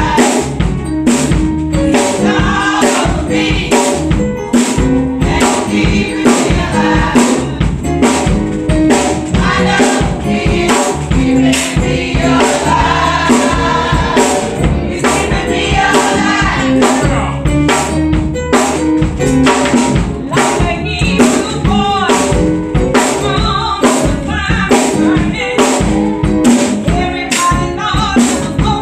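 Gospel music: a choir singing over a drum kit keeping a steady beat.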